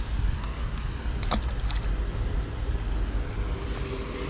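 Steady low rumble of distant road traffic with a faint hum, and two or three sharp clicks about a second and a half in.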